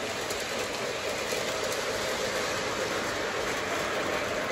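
Lionel model trains rolling steadily along the layout's track: an even running rumble of wheels and motors, with a few faint clicks.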